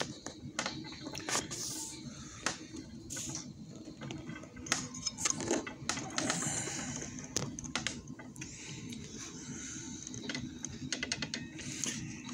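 Irregular soft clicks and rustles from a phone being handled close to its microphone, over a low steady hum.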